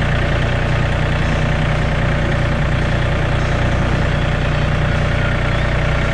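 Farm tractor's engine running steadily at low speed as the tractor slowly pushes a poultry cage across the grass.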